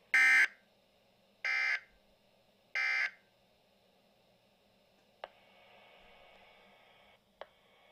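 Three short buzzing bursts of digital alert data tone, about a second and a half apart, the first the loudest: weather-radio SAME code bursts. Later come two sharp clicks over a faint hiss.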